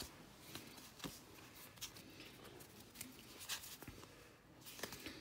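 Baseball trading cards being flipped through by hand: faint, scattered clicks and soft rustling of card stock sliding over card stock.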